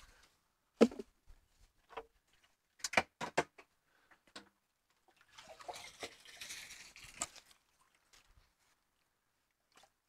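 Knocks and clunks of a plastic rain-barrel lid being handled: one sharp knock about a second in and a quick cluster of knocks around three seconds in. Then about two seconds of sloshing as water is drawn from the rain barrel to water the planters.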